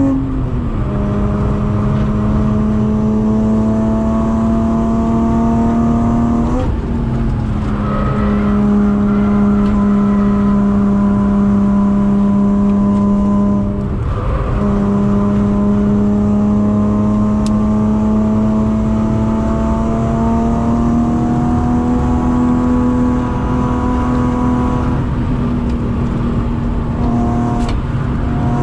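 BMW E36 323i's 2.5-litre straight-six on a Supersprint exhaust, heard from inside the cabin, pulling hard at high revs on track, its pitch climbing slowly. There is a gear change near the start and short breaks for shifts or lifts at about 7 and 14 seconds.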